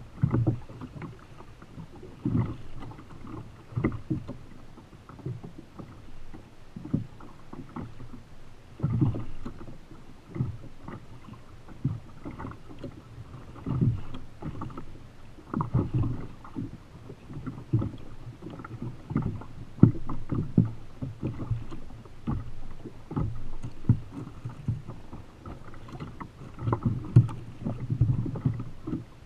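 Choppy sea waves slapping against the hull of a Feel Free Lure 13.5 fishing kayak, in irregular low thuds and splashes every second or two over a steady wash of water.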